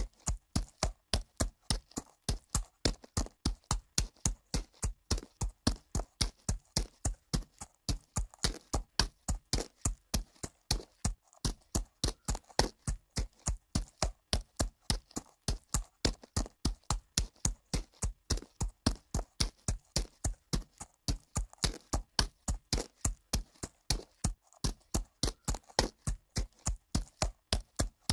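A horse walking on dirt, its hooves striking in a steady clip-clop of about three hoofbeats a second.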